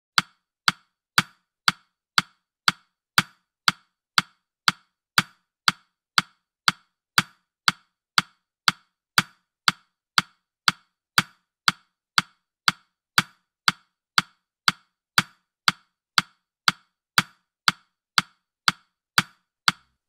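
Digital countdown timer's ticking sound effect: sharp, even clicks, two a second, counting off the last thirty seconds of the countdown.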